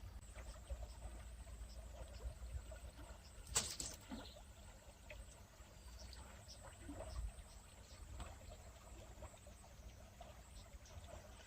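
Faint outdoor ambience: a steady low rumble like wind on the microphone, with one short, sharp noise about three and a half seconds in.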